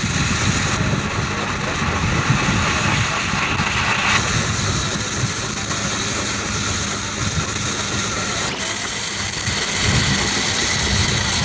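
Case steam traction engine running with a low, uneven rumble, heard through a steady hiss from a badly worn magnetic film soundtrack.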